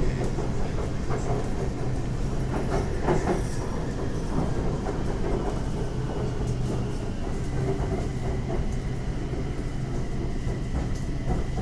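Bangkok BTS Skytrain running on its elevated track, heard from inside the car: a steady rumble with several sharp clacks from the wheels in the first few seconds, and a thin steady high whine coming in about halfway through.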